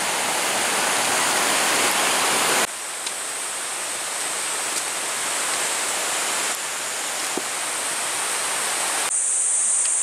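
Rain-swollen mountain stream rushing over rocks, a loud steady rush of water. About three seconds in it cuts to a quieter hiss of running water. Near the end a steady high-pitched hiss takes over.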